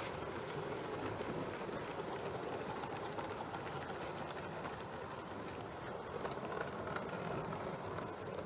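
7mm-scale model trains running along the layout track: a steady rolling noise of wheels on rail, with many small clicks.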